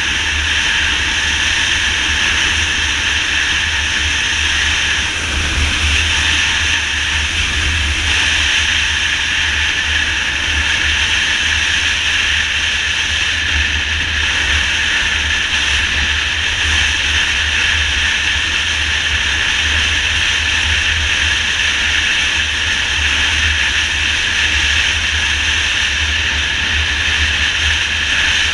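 Steady wind rush buffeting the microphone, over the engine and road noise of a motorcycle cruising at highway speed, around 80 mph.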